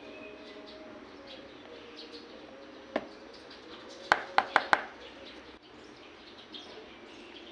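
Birds chirping faintly in the background, with one sharp tap about three seconds in and a quick run of four sharp taps a second later.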